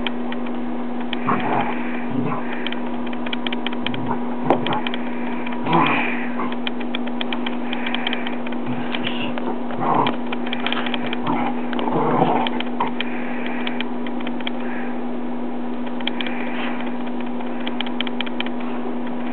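Dogs play-wrestling: short, scattered growls and yips, with light clicks, over a steady electrical hum that runs throughout.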